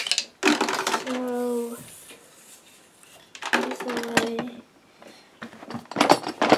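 Plastic toy playset pieces rattling and clicking as they are handled, in three bursts, with a short steady pitched tone about a second in and another near the middle.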